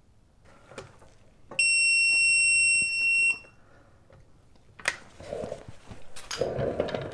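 ACDelco digital torque adapter beeping: one steady high electronic tone about two seconds long, the adapter's alert that it has reached its set torque. About five seconds in there is a single sharp crack as the lug bolt breaks loose.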